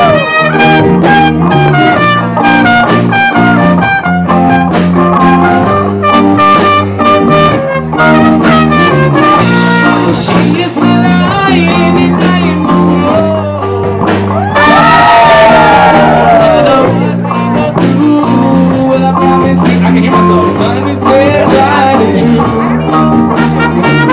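A live band plays a song: guitar over steady bass notes and a regular drum beat, with a pitched lead melody line on top.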